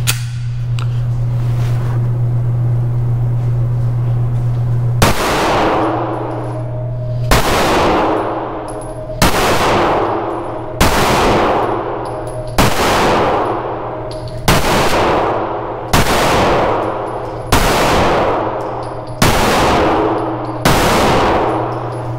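SIG Sauer P320 M18 CA 9mm pistol fired ten times in slow, steady succession, about one and three-quarter seconds apart, each shot ringing on in the indoor range's echo. A steady low hum runs underneath and is heard alone for the first five seconds before the first shot.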